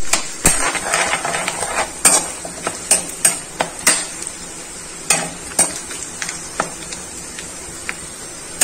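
Garlic, mustard seeds, cumin and dried red chillies sizzling in hot oil in a kadai, with a steady hiss. A metal spatula stirring them makes irregular sharp clicks and scrapes against the pan.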